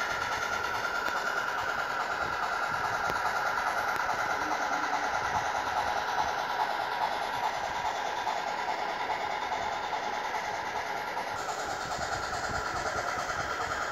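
HOn3 model train, a Blackstone C-19 narrow-gauge steam locomotive pulling freight cars and a combine, running along the track with a steady running noise.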